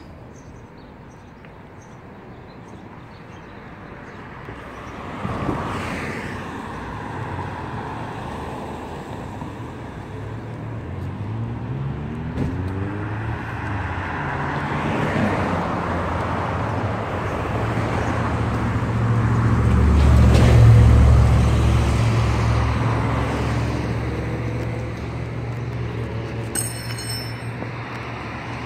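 Road traffic on a multi-lane street: a steady wash of passing cars, with engines heard speeding up at times. The loudest and deepest pass comes about two-thirds of the way through.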